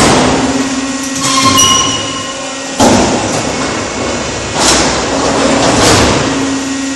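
Concrete block making line running: pallet conveyor and chain pallet elevator moving with a steady motor hum and metallic clanking, and a sharp loud knock about three seconds in.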